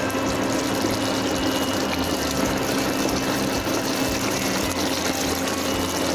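Potato curry simmering in a pan on the stove, a spatula stirring through the gravy, over a steady low mechanical hum.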